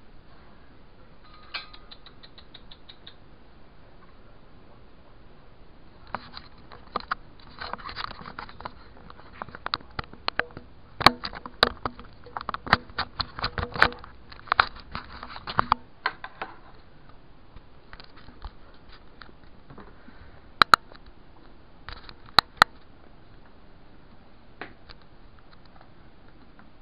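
A patter of small clicks, scrapes and scratching: a few at first, a dense flurry through the middle, then a few sharp single clicks later on.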